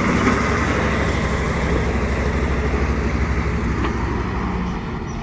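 Heavy diesel truck engine running steadily with a low rumble, easing off slightly near the end.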